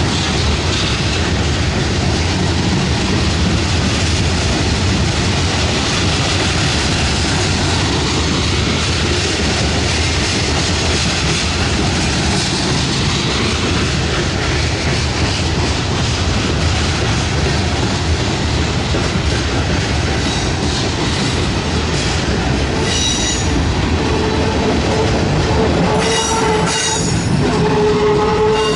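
Freight cars of a CSX train rolling past, a steady rumble of steel wheels on rail. About five seconds from the end, wheels start to squeal in steady high ringing tones.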